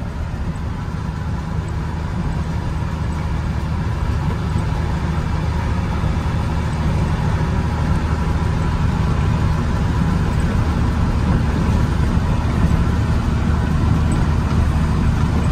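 Peterbilt grain truck's diesel engine running steadily under way, a low rumble that slowly grows louder.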